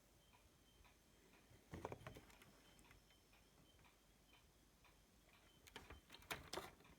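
Near silence with a few faint clicks and taps: a cluster about two seconds in and another near the end.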